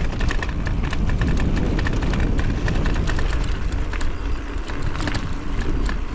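Bicycle rolling along a rough chalk-and-gravel track: wind rumbling on the microphone, with tyre crunch and a steady scatter of small rattling clicks from the bike.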